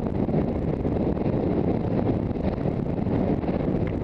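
Steady wind noise buffeting a rider's head-mounted camera microphone as the horse moves across open ground.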